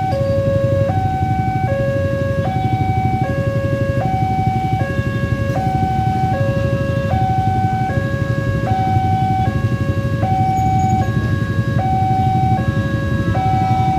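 Railway level-crossing warning siren sounding a two-tone alarm, switching between a higher and a lower pitch about every three-quarters of a second, over a steady low rumble.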